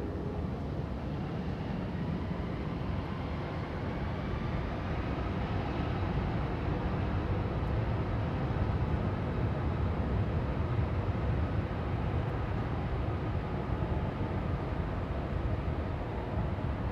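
Airbus A340-600's four Rolls-Royce Trent 500 turbofans at takeoff power on the runway roll: a steady deep rumble with a faint rising whine. It grows louder over the first several seconds and then holds.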